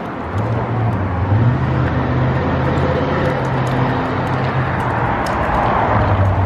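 Child's bicycle with plastic training wheels rolling and grinding over rough asphalt, a steady low rumble that gets louder about five seconds in.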